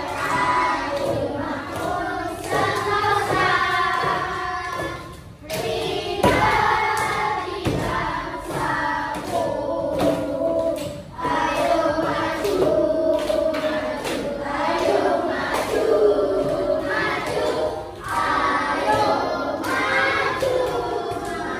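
A class of children singing a song together, with hand claps mixed in.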